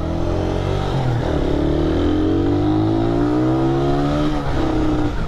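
Small motorcycle engine accelerating through the gears, its pitch rising, dropping at a gear change about a second in, and climbing again before another shift near the end.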